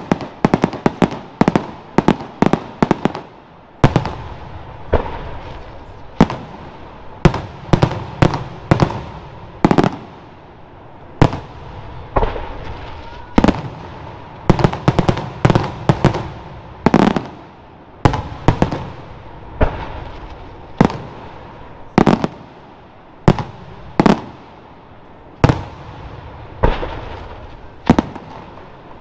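Aerial firework shells bursting in a continuous barrage of sharp bangs, each trailing off in an echo. The bangs come thick and fast over the first few seconds, then settle to about one or two a second.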